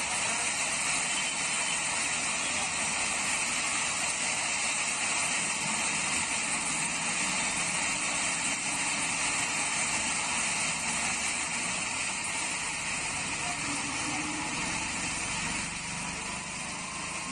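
Steady hiss of rain falling on a wet city street, mixed with the noise of passing traffic; it eases slightly near the end.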